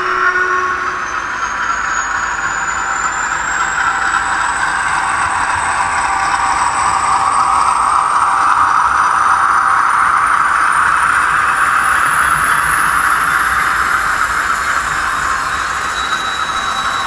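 Model Blue Pullman diesel-electric multiple unit running through on a DCC sound-fitted model railway: a steady rushing engine-and-running noise, with a thin high whine that rises slowly in pitch throughout.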